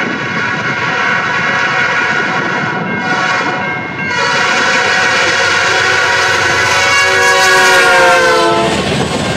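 Diesel freight locomotive's air horn blowing for a grade crossing: a blast, a short break about four seconds in, then one long blast that drops slightly in pitch as the locomotive passes. Near the end the horn stops and the rumble of the passing train is left.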